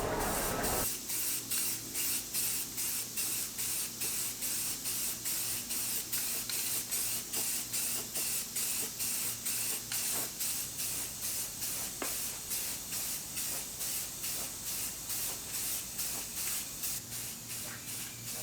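Primer being sprayed onto the engine bay, a hiss that pulses in quick, even bursts of about three a second.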